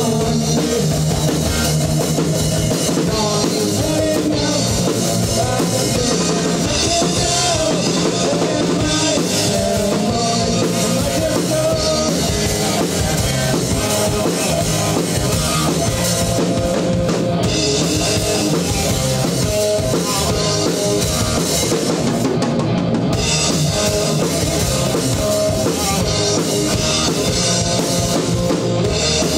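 Live rock band playing loudly, the drum kit with its bass drum and snare to the fore.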